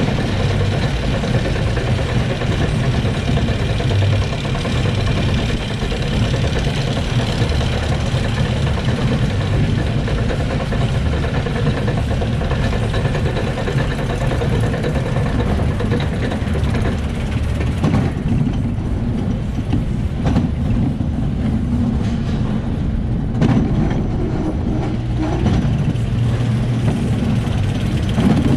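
Reverchon spinning coaster car being hauled up the chain lift hill: the lift chain and drive run with a steady mechanical rumble and clatter, with sharper clicks in the last third as the car nears the crest.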